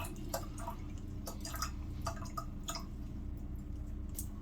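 Water dripping in irregular small drops and light ticks, a few a second, over a steady low hum.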